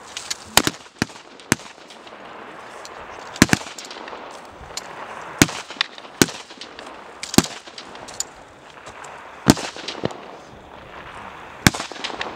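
AK-74 assault rifles (5.45×39mm) fired in single shots by several shooters along a firing line: sharp reports at irregular intervals, a dozen or more, some nearly overlapping, some louder than others.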